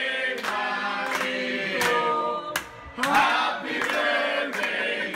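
A group of voices singing together, with hands clapping along.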